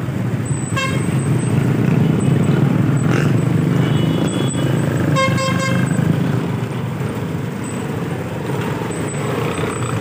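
Steady low rumble of road traffic and engines, with a vehicle horn tooting briefly about a second in and again for about a second around five seconds in.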